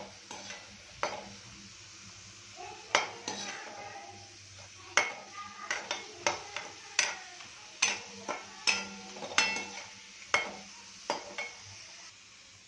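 Potato fingers deep-frying in hot oil with a steady sizzle, while a slotted spoon stirs them, knocking and scraping against the pan many times.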